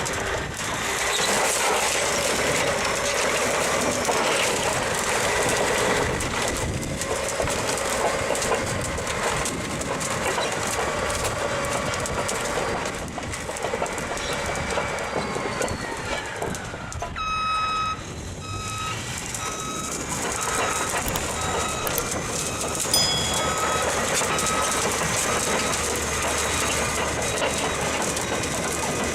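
Large crawler bulldozer running, its steel tracks clattering, which the narrator takes for a Caterpillar D11T. A reversing alarm beeps steadily, about one and a half beeps a second, for several seconds past the middle.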